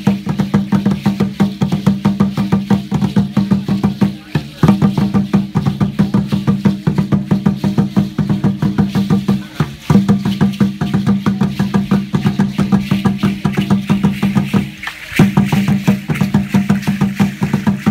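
Aztec dance drumming on an upright huehuetl drum: fast, steady strokes with a deep, even pitch. The beat breaks off briefly three times, about every five seconds, then picks up again.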